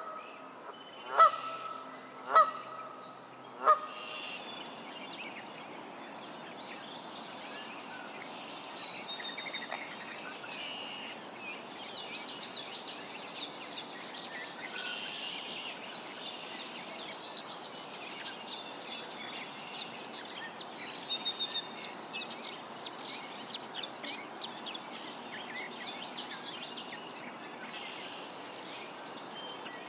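A Canada goose honks three times in the first few seconds, about a second apart. After that, a chorus of songbirds sings and chirps in short, high, rapid phrases over a faint steady background.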